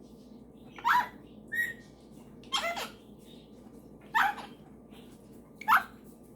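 Pet parrots calling: about five short, sharp squawks a second or so apart, each a high note that drops quickly in pitch, with one brief whistle between the first two.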